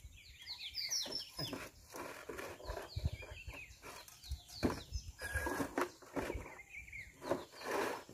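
Birds chirping, with scattered knocks from outdoor work.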